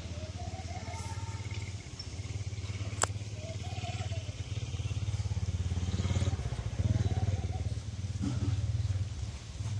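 A steady low motor rumble, like an engine running, with one sharp click about three seconds in.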